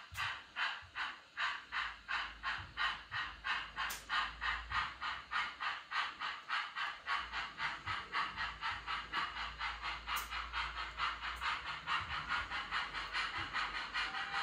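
Steam-locomotive exhaust chuffs from the factory-fitted LokSound 5 sound decoder of an Accurascale OO-gauge GWR Manor 4-6-0 model, played through its small onboard speaker: a steady, even beat of about four hissing chuffs a second.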